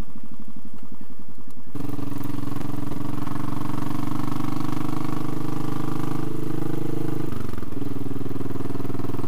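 Royal Enfield Classic 500's air-cooled single-cylinder engine running under way at low road speed, heard from the rider's seat. About two seconds in it pulls harder and the note fills out; about seven seconds in the note dips briefly and then picks up again.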